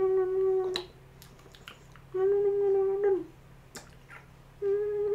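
A woman's voice making three long, level "mmm" hums of about a second each, with sharp kissing smacks in between.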